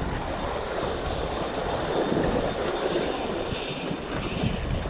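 Steady rushing noise of sea waves washing over shoreline rocks.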